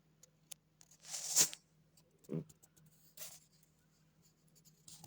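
Sleeping cat snoring: a raspy, hissing breath about a second in, a short low snort about a second later, then another softer raspy breath.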